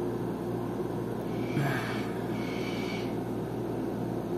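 Steady background hum with a few low droning tones. A short faint hiss comes about one and a half seconds in, and a fainter high hiss follows about a second later.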